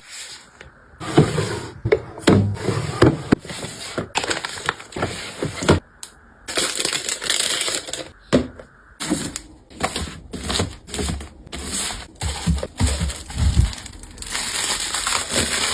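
Household products and packaging being handled: an irregular run of clicks, taps and knocks as items are picked up and set down, with stretches of crinkling a couple of seconds long around the middle and near the end.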